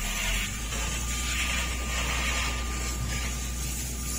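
A low, steady engine drone heard from inside a car's cabin, with a faint thin steady whine over it that starts about a second in.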